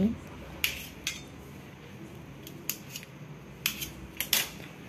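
Kitchen knife cutting through soft ragi idlis on a stainless steel plate, the blade clicking against the metal plate in short sharp taps several times.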